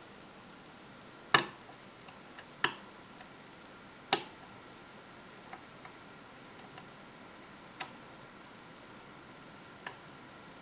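Small metallic clicks from a hook pick and tension wrench working the pins and core of a Union 5-pin Euro cylinder lock. Three sharper clicks come in the first four seconds, then a few fainter ones spaced out.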